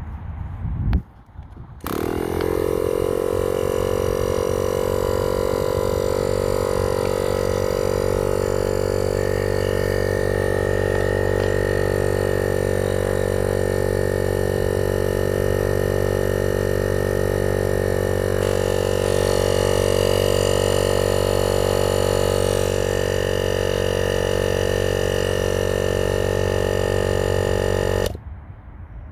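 Vevor air compressor starting up after a brief knock, its motor pitch settling within a second, then running steadily as it builds pressure before stopping abruptly near the end.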